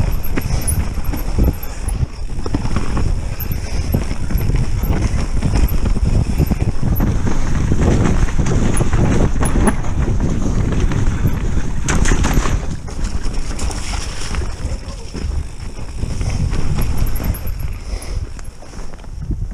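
Mountain bike riding down a rough, partly frozen dirt trail, heard through a rattling GoPro: a steady rumble of tyres over dirt and roots with constant clattering and knocking from the camera, and a louder knock about twelve seconds in.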